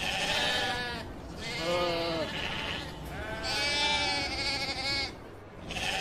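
Sheep bleating: four bleats in a row with short gaps, the second lower in pitch and the third long and wavering.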